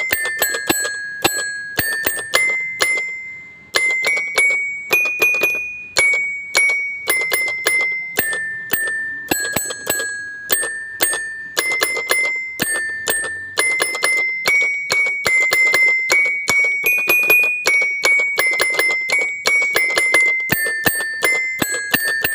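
Background music: a simple melody of quick, bell-like struck notes, each ringing briefly, stepping up and down in pitch.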